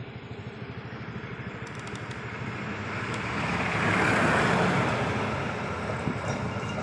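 A motor vehicle's engine running with a fast, even firing pulse. It grows louder to a peak about four seconds in, then eases off, like a vehicle passing close by.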